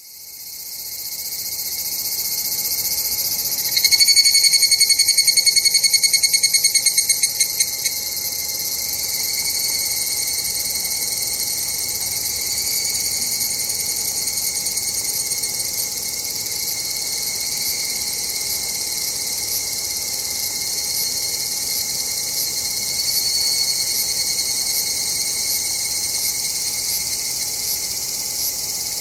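Higurashi evening cicadas (Tanna japonensis) calling: a high-pitched chorus fades in, then a close one's loud, rapidly pulsed song starts about four seconds in and trails off around eight seconds, with more distant cicadas calling on behind it.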